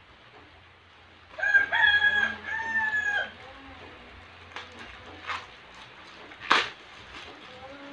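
A rooster crows once, a two-part call of about two seconds starting just over a second in, the loudest sound here. After it, hands crinkle and pull at a plastic courier mailer bag, with a few sharp plastic crackles, the strongest about six and a half seconds in.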